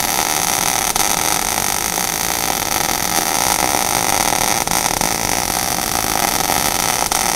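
MIG welding arc from an ESAB Rebel EMP 235ic running a cap pass, a steady even hiss with no breaks. The machine is set about one volt high for its wire feed speed to keep the weld puddle wet.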